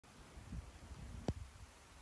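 Faint outdoor ambience with a low, uneven rumble and one sharp click a little over a second in.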